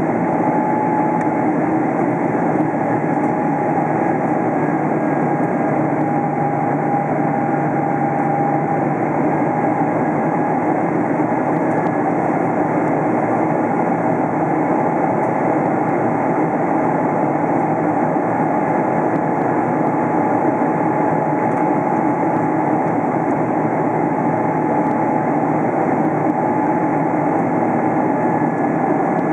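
Steady jet-airliner cabin noise inside a Boeing 777-300 in flight: the engine rumble and rushing airflow, with a thin steady whine from the engine running through it.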